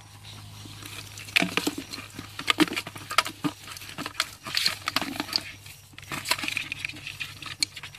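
Irregular rattling, tapping and knocking of a woven bamboo fish trap being shaken out into a plastic bucket, its catch dropping and flopping inside.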